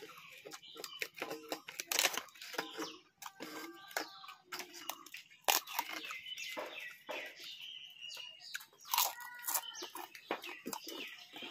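Chickens clucking in short bouts, with the clicks and crunches of someone eating by hand, tearing flatbread and chewing.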